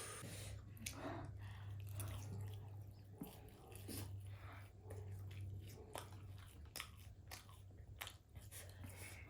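Close-up chewing of instant noodles: scattered wet mouth clicks and smacks, over a faint steady low hum.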